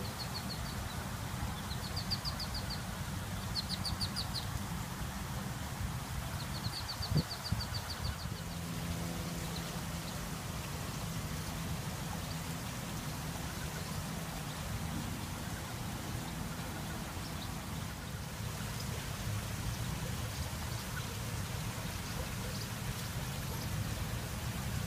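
Water trickling steadily between rock slabs, over a low rumble, with several short, rapid, high-pitched bird trills in the first eight seconds. A single sharp knock comes about seven seconds in.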